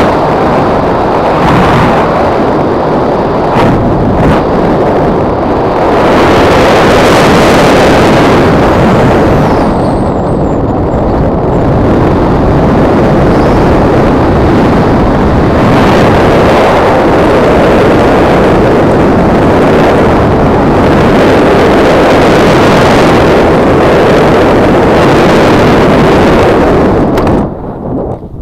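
Heavy wind rushing and buffeting over the camera microphone in flight: a loud, steady rush with no engine note. It drops away suddenly about a second before the end, as the flight touches down on the field.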